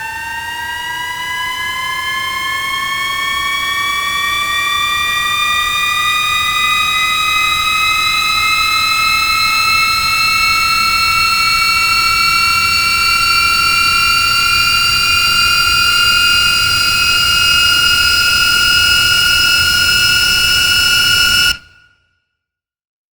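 Cinematic riser sound effect: a siren-like tone with many overtones that climbs slowly in pitch and swells louder for about twenty seconds, then cuts off abruptly about a second and a half before the end, leaving silence.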